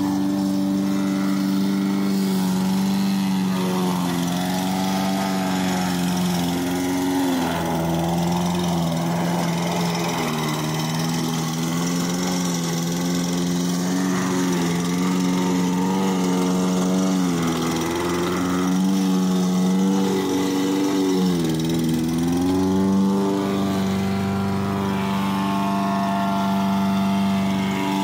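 Small lawnmower engine running continuously, its speed repeatedly dipping and picking back up rather than holding steady.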